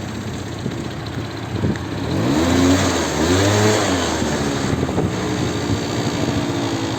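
A motor vehicle's engine revving up and down a couple of seconds in, then running steadily, over a constant background rush.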